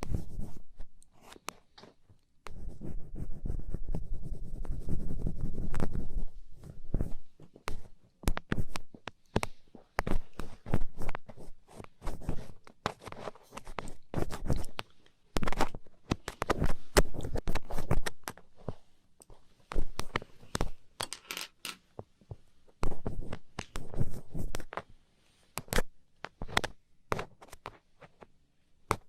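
Ear pick scraping and scratching inside a microphone's ear, close up: a quick, irregular run of clicks and scratchy strokes, with a stretch of low, muffled rubbing a few seconds in.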